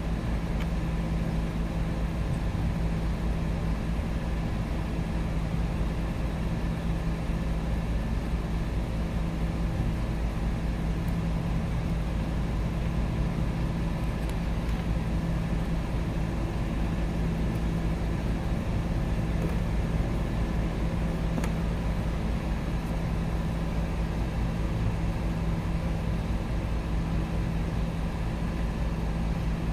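A steady low mechanical hum with a constant pitch that does not change.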